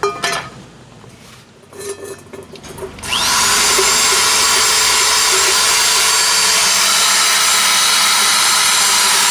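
Handheld power tool buffing rust off a skillet: a few knocks and clicks, then about three seconds in the motor spins up with a quick rising whine and runs steadily with a loud, even grinding noise.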